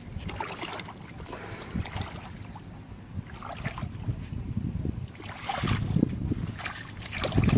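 Feet wading through shallow muddy water: irregular sloshing and splashing steps, loudest near the end.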